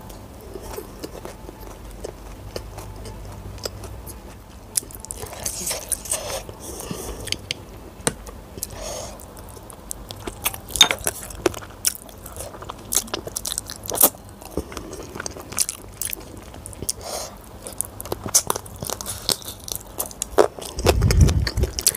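Close-miked chewing and biting of yellow rice and chicken curry eaten by hand, with many irregular wet mouth clicks and smacks. There is a low thump near the end.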